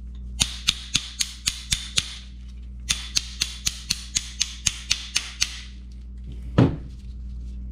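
A ratchet used as a hammer tapping a rust-seized tool to free its screw assembly: quick sharp metal-on-metal taps, about four a second, in a short run and then a longer one. A single heavier, deeper knock comes near the end.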